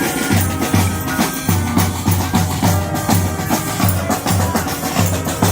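Honk-style street brass band playing, with low bass notes pulsing about twice a second under drums and held horn tones.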